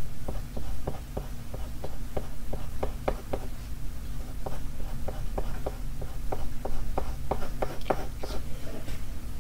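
Pencil scratching on drawing paper in short, quick strokes, a few a second, as lines are sketched in.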